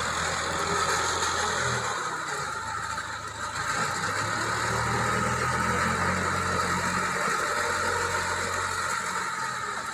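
JCB 3CX backhoe loader's diesel engine running steadily as the machine drives with a load of oil palm fruit bunches in its front bucket.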